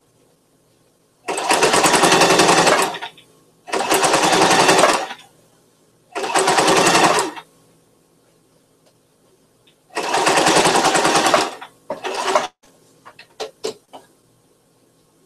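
Electric sewing machine stitching the fabric of a hat in four short runs of about a second and a half each, with pauses between, then one brief run. A few light clicks follow near the end.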